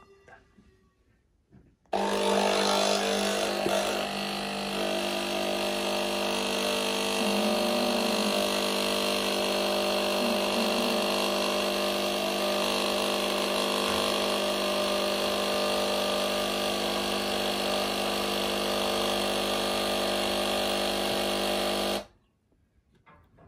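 Nespresso Inissia capsule machine's vibratory pump running as it brews an espresso: a steady hum that starts suddenly about two seconds in and cuts off sharply near the end, about twenty seconds later.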